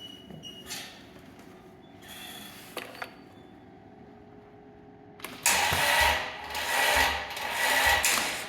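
Kubota 1870 tractor's diesel engine being cranked by the starter for about three seconds, in three surges, without catching: a no-start.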